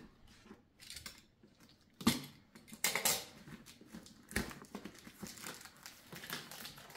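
A cardboard box being opened by hand: a utility knife scratching through the packing tape, then a sharp knock about two seconds in and another past four seconds, with scraping and scuffing of cardboard as the top is pulled open and the box is handled on the table.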